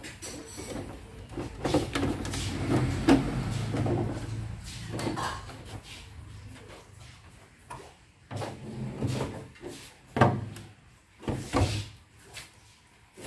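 Plastic back cover of a CRT television being worked loose and slid off the cabinet, with scraping and rubbing of plastic on plastic. Several separate knocks follow later as the cover and cabinet are handled.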